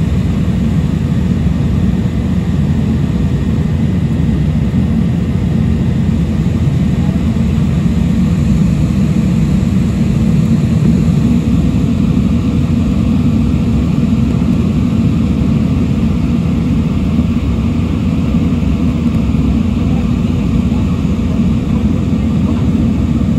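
Steady low roar inside an airliner's cabin in flight, engines and airflow, with a faint steady whine over it, during the approach before landing.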